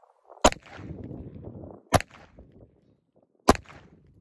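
Crvena Zastava M70 pistol fired one-handed: three single shots about a second and a half apart.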